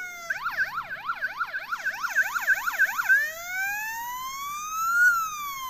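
Electronic police siren from a Siku police boat toy's battery-powered light-and-sound module, played through its small speaker. It starts with a slow falling wail, switches to a fast yelp of about four sweeps a second for nearly three seconds, then returns to a slow wail that rises and falls.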